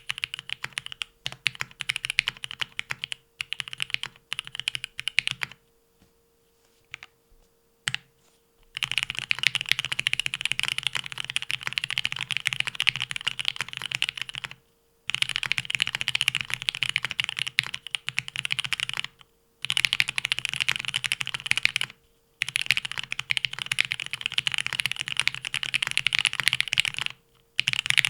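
Leaf65 custom mechanical keyboard with lubed Marshmallow linear switches and Extended 2048 keycaps, typed on over a deskmat. A few scattered keystrokes come first, then runs of fast continuous typing lasting several seconds each, broken by short pauses.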